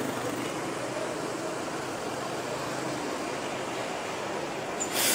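Street traffic noise as a city bus drives past, with a sudden louder hiss starting near the end.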